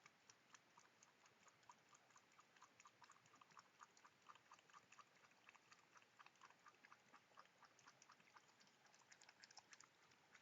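Possum chewing: a faint, steady run of quick, irregular crunching clicks, several a second.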